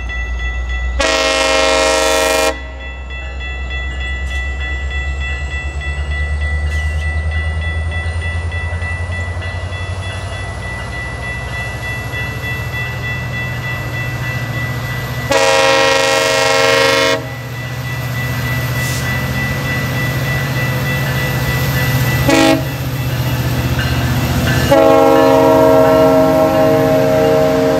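GO Transit MP40 diesel locomotive sounding its horn in the level-crossing pattern of long, long, short, long as it pulls toward a grade crossing. Its engine rumble grows louder as it nears, and the last long blast runs as the locomotive reaches the crossing.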